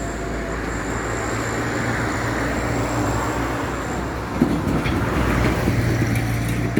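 Roadside traffic with a bus engine running close by, a steady low hum under road noise. A single sharp knock sounds about four and a half seconds in.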